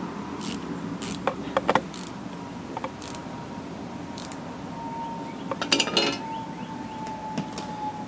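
Scattered metallic clicks and taps of a long T-handle Phillips screwdriver tightening the loose fuel pump screws on a Kohler Magnum 8 engine, with a quick run of clicks about six seconds in. A steady hiss of heavy rain lies under it.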